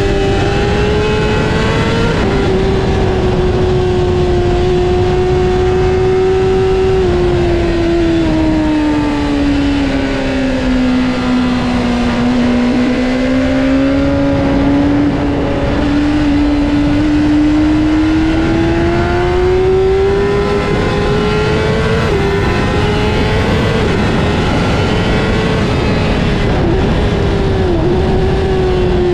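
2015 Honda CBR600RR's inline-four engine running at high revs on a track lap, over heavy wind rush. Its note sinks steadily in pitch about a third of the way in, climbs back up over the next several seconds, then holds high with a few brief dips near the end.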